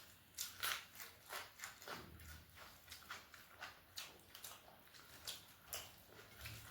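Close-up chewing and mouth sounds of someone eating: a run of short, soft clicks and smacks, about two or three a second.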